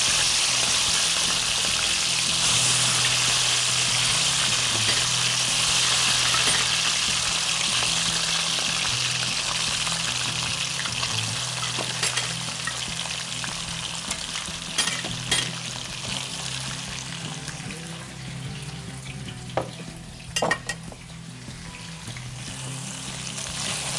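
Chicken pieces frying in hot oil in a wok over a high gas flame, a steady sizzle that is loudest at first and gradually eases off. Metal tongs clink sharply a handful of times from about halfway on.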